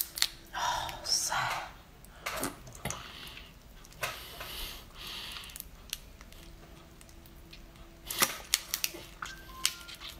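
A large raw prawn's shell crackling as it is peeled by hand, then sucking noises as the meat is sucked out of the tail shell. A run of sharp shell cracks comes near the end.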